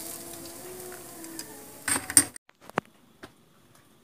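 Hot oil sizzling in a frying pan as fried banana pieces are lifted out with a wire strainer, with a few sharp metal clinks about two seconds in. The sound then cuts off suddenly to a quiet stretch with a few faint clicks.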